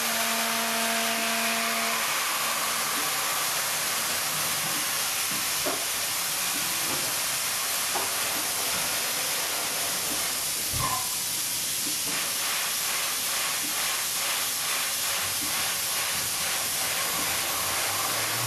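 Steady hiss of a CNC machining center cutting dry under an MQL air-and-oil-mist nozzle. About halfway through there is a single knock as the tool carousel changes tools. After that, a regular pulsing about twice a second runs under the hiss while a small drill works the block.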